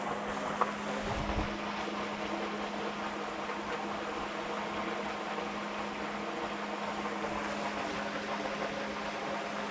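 A steady low mechanical hum over a constant background hiss, with a single small click about half a second in.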